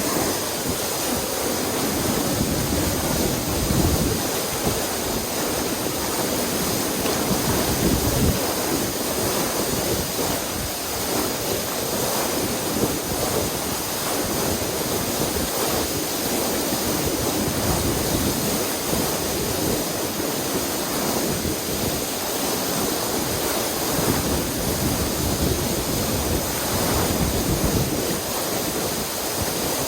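Waterfall: a steady rush of falling water, with wind buffeting the microphone now and then.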